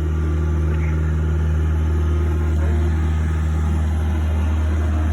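Skid steer's engine running steadily with a low, even hum.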